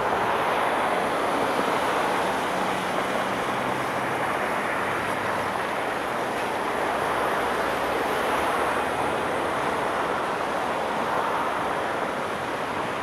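Steady traffic noise from cars and vans driving along a multi-lane road, the tyres hissing on the wet road surface, with a faint engine hum in the first few seconds.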